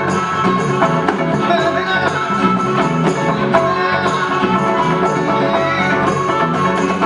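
A small live acoustic band playing: harmonica carrying a melody with bending notes over strummed acoustic and electric guitars and hand drums.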